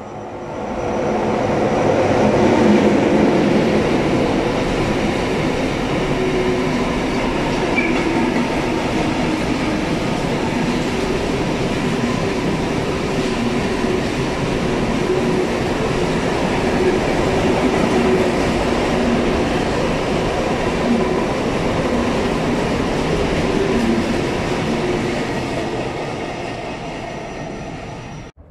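Intermodal freight train hauled by an electric locomotive passing through the station at speed: a loud, steady rush of wagons and wheels on the rails that builds in the first second, eases slightly near the end and then cuts off abruptly.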